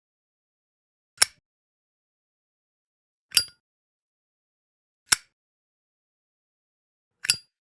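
Zippo lighter's metal lid clicking four times, about two seconds apart, each click sharp with a brief bright metallic ring.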